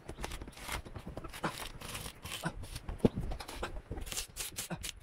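Strong double-sided tape tearing as a flexible solar panel is pried up with a razor blade. It comes as irregular clicks and short rips, the sharpest about three seconds in.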